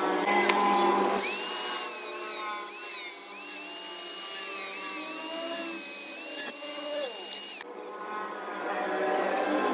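High-speed power tool whining at a high pitch, the pitch dipping briefly several times as it bites into metal, with a hiss under it; the sound cuts off abruptly near the end.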